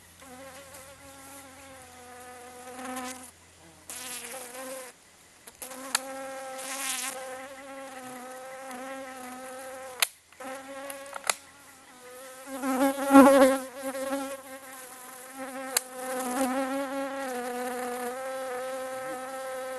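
A flying insect buzzing close to the microphone: a steady, slightly wavering pitched buzz that swells loudest around thirteen seconds in. A few sharp clicks sound over it, the clearest about ten seconds in.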